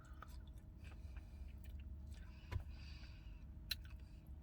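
Quiet car-cabin background: a faint, steady low rumble with a few small clicks and a brief soft rustle around the middle.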